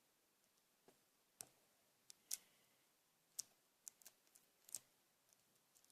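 Faint, scattered sharp clicks and ticks from hands working paper and sticky tape, about ten at irregular intervals, the loudest a little past two seconds in and just after three seconds.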